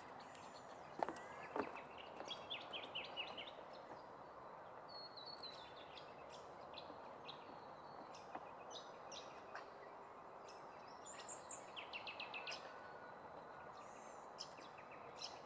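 Wild birds chirping, with several quick trilled runs of notes, over a faint steady background hiss. Two soft clicks sound about a second in.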